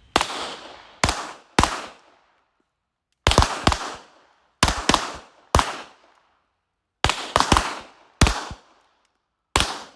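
Pistol shots fired in quick strings on a shooting range during a step-back-and-shoot drill. There are about fourteen sharp reports in clusters of two or three, each with a short echoing tail.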